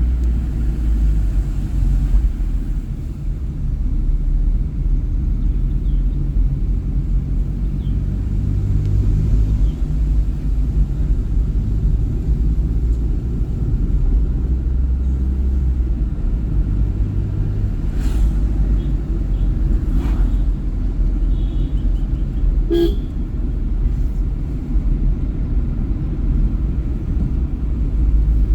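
Steady low rumble of a vehicle driving along a road, with a brief horn toot about three-quarters of the way through and a couple of faint knocks a little before it.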